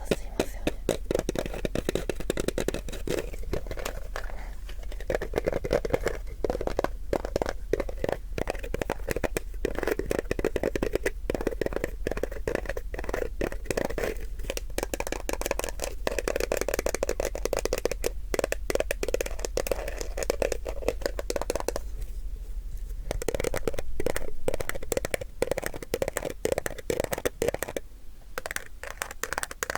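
Close-miked handling of an everyday object: dense, rapid crackly scratching and crinkling that goes on steadily, dipping briefly about three quarters of the way through.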